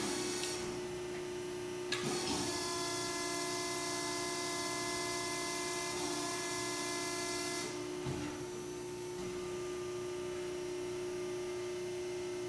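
Hydraulic pump of a 100-ton Wysong CNC press brake running with a steady hum. About two seconds in a knock sounds and the ram cycles, with a hydraulic whine and hiss for about six seconds, ending with another knock.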